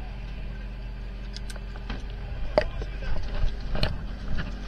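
Fishing boat's engine idling steadily, with a sharp knock about two and a half seconds in and a few louder clattering knocks near the end.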